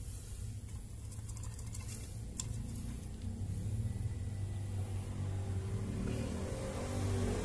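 Low, steady motor-engine rumble in the background, growing somewhat louder in the second half, with a few faint clicks early on.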